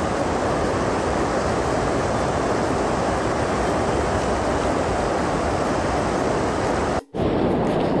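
Stream water rushing over a rock ledge and through rapids, a steady loud rush with a momentary dropout about seven seconds in.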